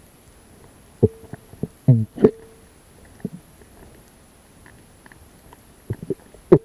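Underwater sounds picked up through a camera's housing: a few short, sudden knocks and gurgles, clustered about two seconds in and again near the end, over a quiet background.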